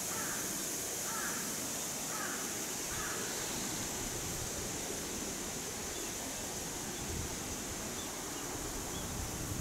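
A crow cawing faintly four times in the first three seconds, over a steady high hiss. Small high chirps come in the second half.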